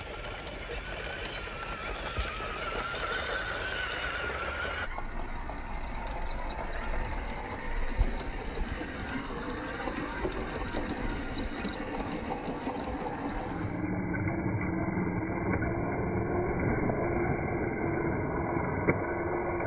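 Small electric motor and gear train of a WPL B36 Ural 6x6 RC truck whining as it drives over dirt and rock, the whine wavering in pitch, with a sharp knock about eight seconds in.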